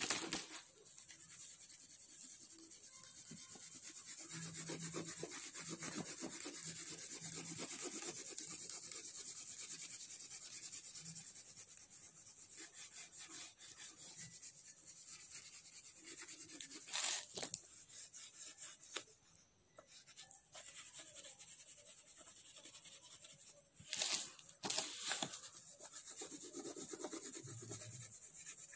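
Dark brown oil pastel rubbed back and forth on drawing paper in steady, scratchy shading strokes. A few sharper knocks stand out along the way.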